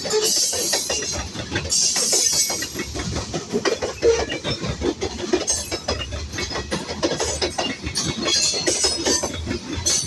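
Freight train of grain hopper cars rolling past, steel wheels clacking over the rail joints in a dense run of clicks and clanks, with some high metallic hiss.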